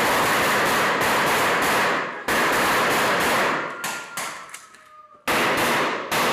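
Rapid rifle fire in long dense bursts: one burst breaks off about two seconds in, a second runs to past the middle and trails off into scattered single shots, and a new burst starts near the end.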